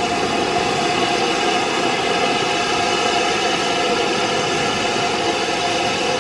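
Steady, unbroken hiss of steam from a BR Standard Class 5 4-6-0 steam locomotive moving slowly, with no separate exhaust beats.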